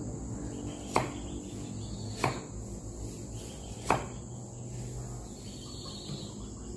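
Three sharp, separate knocks a second or more apart, a cleaver striking a wooden chopping board while mincing meat for larb. A steady high cricket trill runs underneath.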